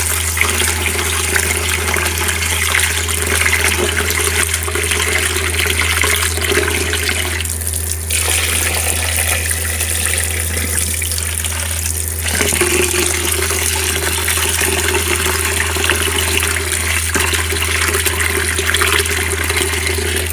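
Kitchen tap running steadily into a plastic basin of rice while the rice is rinsed by hand, the cloudy rinse water splashing off into the sink.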